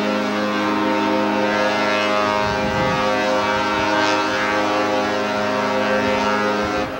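Cruise ship's horn sounding one long, steady blast that cuts off abruptly near the end.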